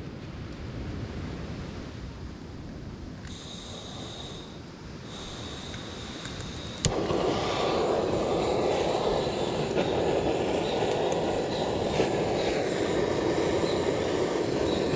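Steady outdoor noise of wind on the microphone and surf on the beach. It gets suddenly louder about seven seconds in.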